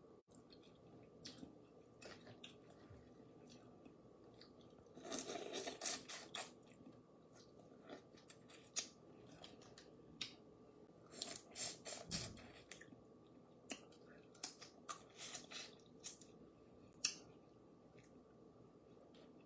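Boiled crawfish being eaten close to the microphone: shells cracking and being peeled, with chewing. Scattered sharp cracks, with denser bursts of crackling about five seconds in and again about eleven seconds in.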